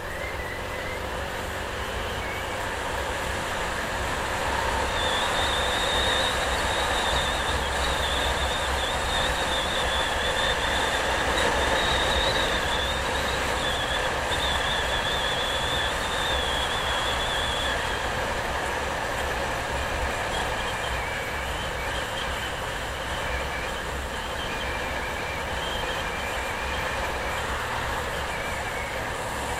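Steady road and wind noise from a vehicle travelling along a street, with a low rumble underneath. A high, wavering squeal comes in about five seconds in and lasts over ten seconds, then returns fainter and broken up.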